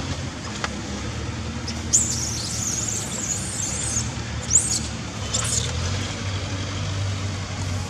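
High-pitched squealing from a newborn long-tailed macaque: one wavering squeal lasting about two seconds, starting about two seconds in, then two short sharp squeaks about a second apart. A steady low hum runs underneath.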